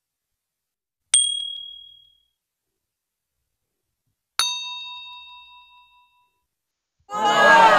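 Two dinging bell sound effects: a short high ding about a second in, then a fuller bell ding with several ringing tones about four and a half seconds in, each fading out over a second or more. Near the end a louder, rushing sound effect starts, with its pitch falling.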